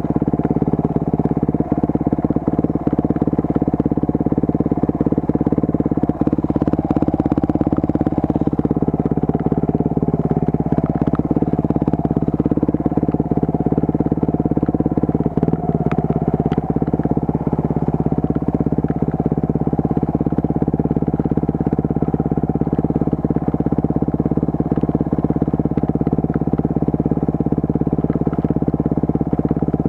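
Enduro motorcycle engine running steadily at low, near-constant revs, its pitch dipping slightly a couple of times, with scattered light clicks and knocks over it.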